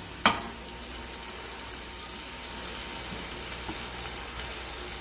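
Egg and vegetables frying in a pan, sizzling steadily, with one short click just after the start.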